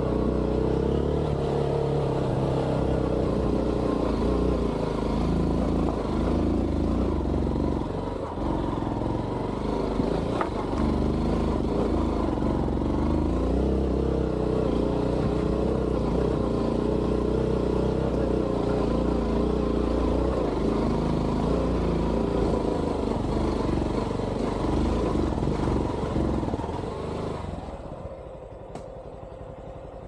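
Honda XR190 motorcycle engine running steadily under way, its pitch and level holding fairly even, then dropping off sharply about 27 seconds in.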